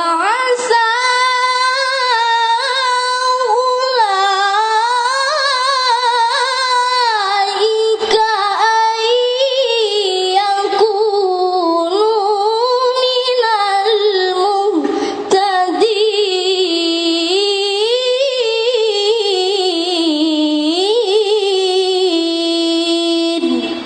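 A child qari reciting the Qur'an in melodic tilawah style: one long, ornamented phrase on a single voice, winding up and down in pitch and settling on a held note near the end.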